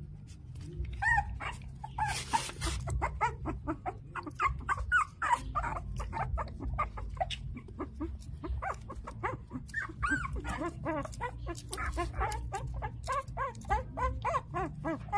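Young puppies whimpering and squealing over and over, many short high-pitched whines in quick succession, as they crowd around a milk bottle to feed. A low steady rumble runs underneath.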